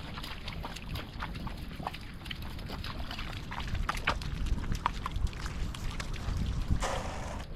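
Wind rumbling on an outdoor microphone, with scattered wet-sounding clicks and crackles and a short burst of hiss about seven seconds in.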